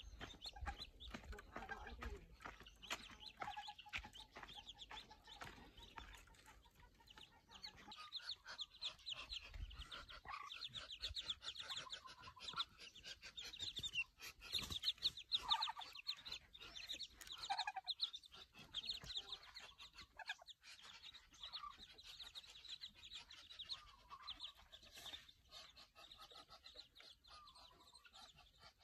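A brood of ducklings peeping: rapid, high-pitched chirps running on without pause, with a few lower calls mixed in.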